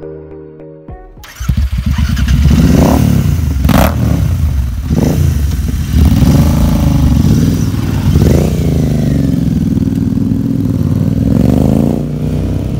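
Background music ends, then about a second in a Royal Enfield 650 parallel-twin motorcycle's exhaust comes in close up, running and being revved in repeated rising and falling blips, with one sharp crack about four seconds in.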